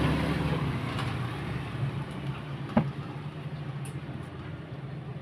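A motor vehicle engine running with a steady low hum that fades steadily, as if moving away, with a single sharp click near the middle.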